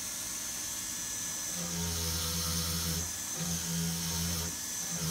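Jeweler's rotary handpiece spinning a small buffing wheel against the inside of a ring, with a steady high whine. A lower hum comes and goes several times, about a second at a time.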